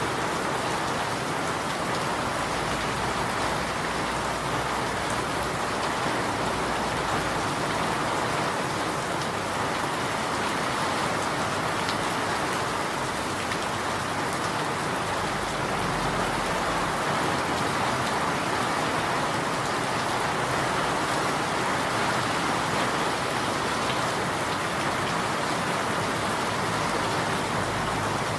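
Steady rain falling on surfaces, a dense, even patter.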